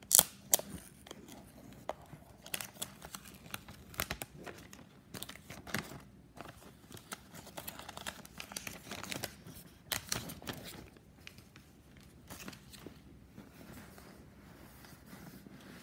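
Clear plastic shrink-wrap being torn and peeled off a phone box, crinkling in irregular sharp crackles, loudest just after the start.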